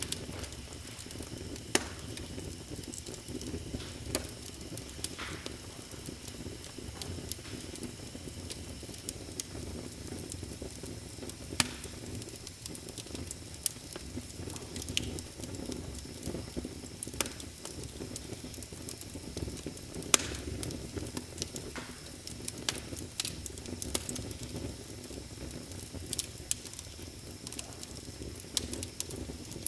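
Wood fire in a fireplace crackling, with irregular sharp pops over a low steady rumble of burning, a few pops much louder than the rest.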